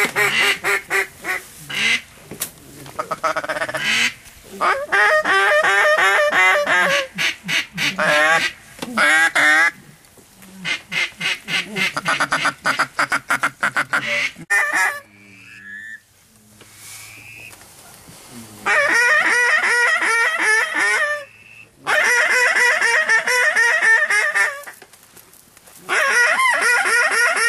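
Waterfowl calling at close range: loud, rapid strings of honking, quacking notes, each run lasting several seconds with short breaks between, and a quieter spell about halfway through.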